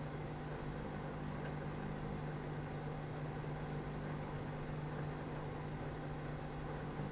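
Microwave oven running while it heats: a steady hum with fan noise.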